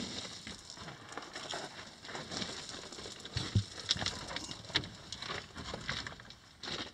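Loose broken rock crunching, scraping and clattering under feet and hands as someone scrambles up a rock pile, an irregular string of scrapes and clicks.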